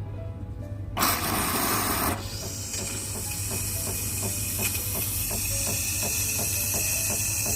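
Espresso machine hissing. A loud burst about a second in settles into a steady hiss with a rapid, even ticking of about three ticks a second.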